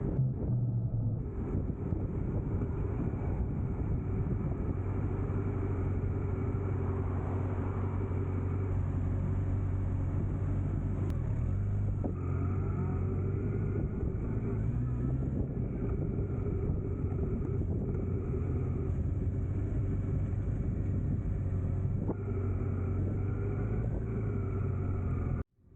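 A motor vehicle engine running steadily at an even speed, with road noise under it. The sound cuts out abruptly for a moment just before the end.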